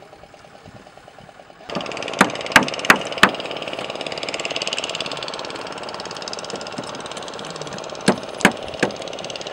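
Sharp knocks of a wooden stick striking oyster shells on a wooden plank to crack them open: four quick blows about two seconds in and three more near the end. Under them an engine runs steadily.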